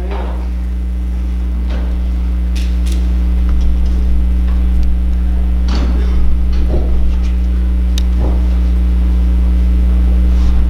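A steady low hum through a church sound system, a few level tones that slowly grow louder, with a few faint knocks and rustles over it.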